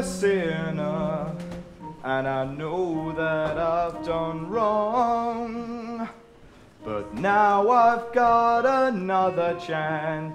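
A song from a stage musical: a singing voice with long held notes over sustained instrumental accompaniment, with a brief drop in level about six seconds in before the singing resumes.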